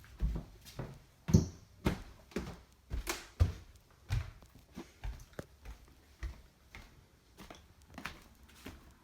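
Irregular knocks, taps and bumps of things being handled close to the microphone, with two louder thumps about a second and a half in and about three seconds in.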